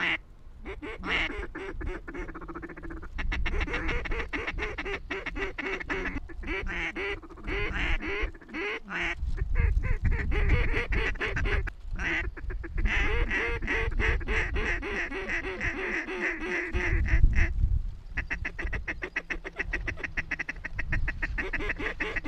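Mallard quacking and fast chattering calls, dense and continuous, with short gaps around 6, 8, 12 and 18 seconds in and a few low rumbles.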